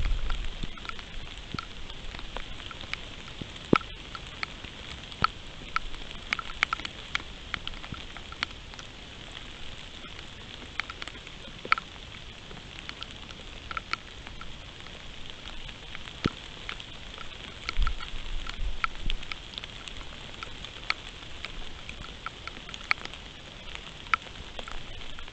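Steady rain with many scattered, sharp raindrop ticks, with a brief low rumble about two-thirds of the way through.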